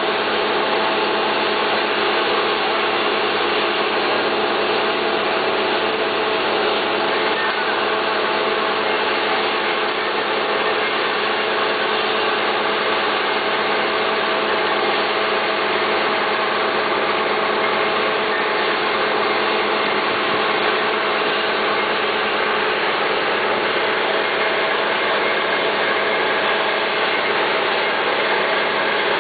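Truck-mounted borewell drilling rig running while drilling: a loud, constant mechanical din with a steady hum through it.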